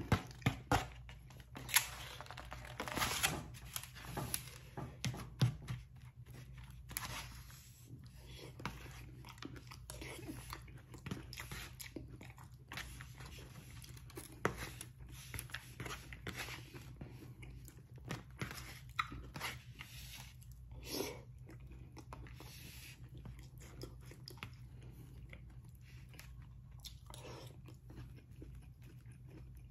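A person eating: chewing, with a metal spoon clicking and scraping against a disposable plate, the clicks busiest in the first few seconds. A steady low hum runs underneath.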